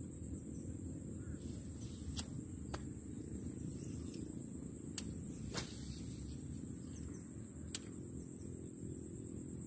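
Outdoor swamp ambience: a steady low wind rumble on the microphone and a steady high insect drone, with five sharp clicks scattered through from the angler's baitcasting reel as a frog lure is cast and worked over the lily pads.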